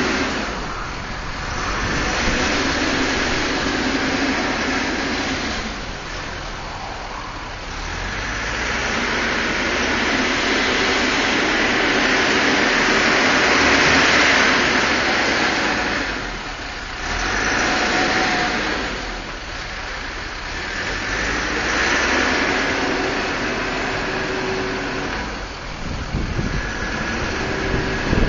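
Caterpillar 416C backhoe loader's diesel engine revving up and easing off repeatedly under load as the machine maneuvers and works its loader bucket, swelling and dropping back several times.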